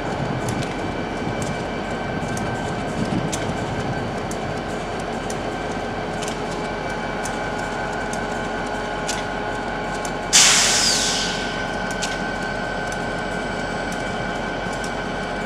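EMD GP40PH-2 diesel locomotive's turbocharged V16 engine idling steadily. About ten seconds in comes a sudden loud hiss of air that fades away over a second or so.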